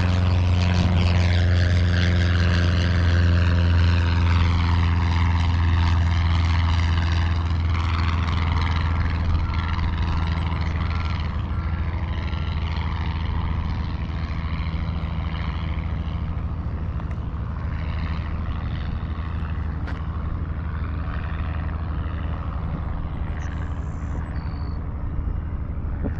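Cessna's piston engine and propeller droning as the plane climbs away after takeoff, its pitch dropping over the first few seconds, then a steady drone slowly fading. The engine sounds good: running smoothly after its spark plugs were replaced.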